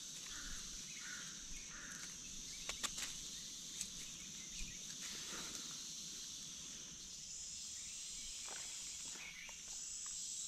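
Steady high-pitched insect drone, with scattered crackles and snaps of footsteps on dry leaves and twigs; a second, higher insect trill comes in past the middle.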